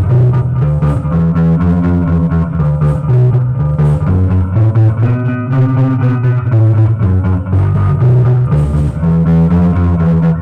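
Guitar playing a twelve-bar blues, a repeating low bass figure under chords and melody notes.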